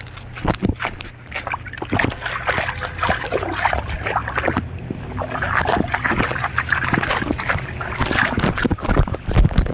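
Footsteps splashing on wet ground, irregular steps and rustling handling noise over a steady low rumble.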